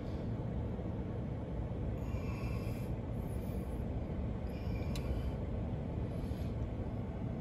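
Steady low rumble of strong wind from a waterspout passing over, buffeting the vehicle and heard from inside the cabin. Faint higher tones come briefly twice.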